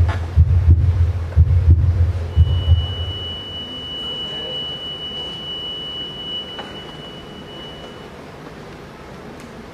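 Heartbeat sound effect, deep double thumps about once a second, fading out about three seconds in. A thin, steady high tone comes in about two seconds in and holds for about six seconds.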